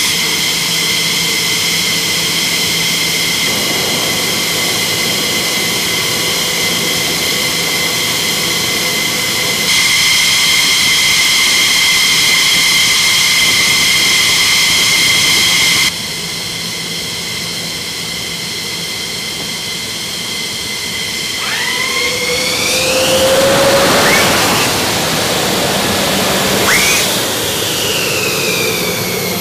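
F-15E Strike Eagle jet engines (Pratt & Whitney F100 turbofans) running on the ground: a loud steady whine made of several high tones, which changes abruptly in level twice. In the last several seconds the whines sweep up and then down in pitch as the sound swells to its loudest.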